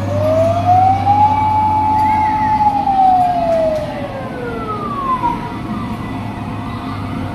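Fire-engine-style wailing siren: the pitch climbs over about a second, holds, then slowly falls away. A second, higher wail overlaps it near the middle.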